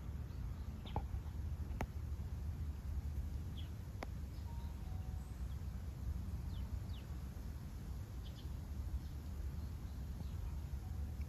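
Outdoor ambience: a steady low rumble with faint, short bird chirps scattered throughout, and two sharp clicks about two and four seconds in.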